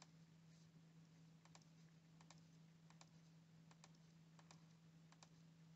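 Near silence with a low steady hum, and faint light clicks that come in quick pairs, several times, about every three-quarters of a second.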